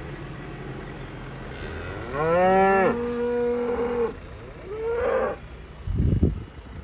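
Cattle mooing twice: a long moo about two seconds in that rises in pitch and then holds steady, and a shorter moo about five seconds in. A brief low rumble follows near the end.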